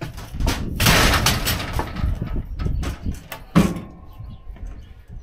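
Wooden 2x10 plank and the steel coil cradle of a seamless gutter machine being worked by hand: knocks and a scraping clatter, busiest about a second in, then a loud clank a little past three and a half seconds with a metallic ring that hangs on for about a second.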